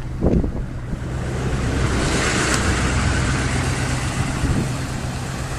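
Motor vehicle running: a steady low engine hum with road noise, and a rushing swell in the middle that builds and fades, as of a vehicle passing.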